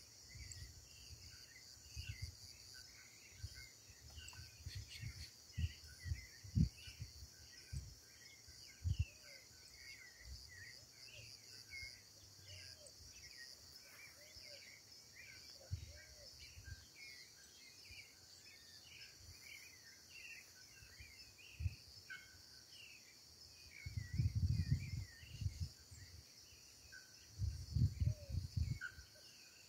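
Tropical forest ambience: a steady high-pitched insect drone with many small birds chirping and calling over it. Low rumbles come and go, strongest twice near the end.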